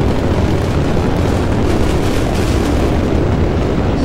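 Space Shuttle Discovery's two solid rocket boosters and three main engines at full burn during ascent: a loud, steady, deep rocket roar with crackling.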